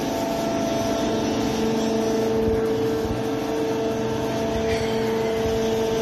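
PAM Super 75 fully automatic horizontal baler running under test: the hydraulic power unit gives a steady mechanical hum with a constant whine.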